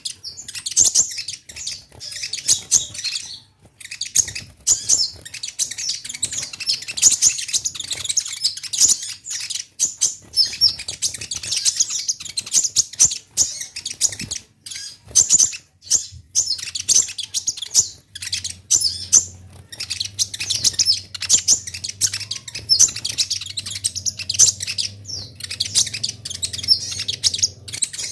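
Kolibri ninja (konin) singing vigorously: a fast, unbroken stream of high-pitched chirps and twitters with only brief pauses.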